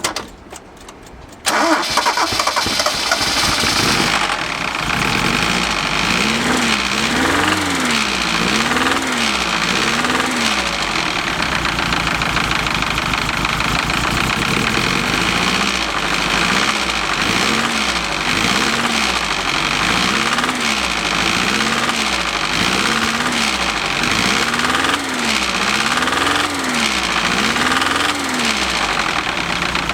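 Toyota 2T-G twin-cam inline-four engine starting about a second and a half in, then running steadily with an abnormal noise that the owner thinks is neither the cam chain nor the bearings. A low tone rises and falls about once a second through most of the run.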